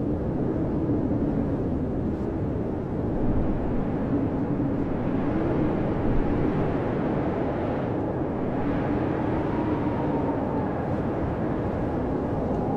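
Blizzard wind blowing steadily, a deep rushing noise with a low, wavering howl that slowly rises and falls in pitch.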